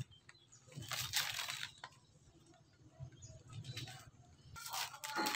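Coconut husk fibre rustling and tearing as it is pulled off a sprouted coconut by hand, in two short bursts, one about a second in and one near the end, over a low steady hum.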